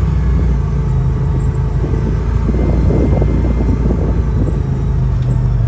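Side-by-side UTV engine running steadily as the machine rolls slowly along, heard from the seat as a constant low drone.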